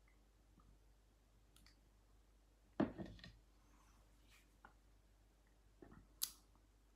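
Plastic measuring jug set down on a table with a single thump about three seconds in. The rest is quiet, with a few faint clicks and a short, sharp hiss near the end.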